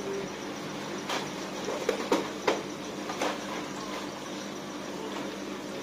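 Plastic fish bag being handled at a shop sink: a handful of short sharp crinkles and taps, over a steady low hum.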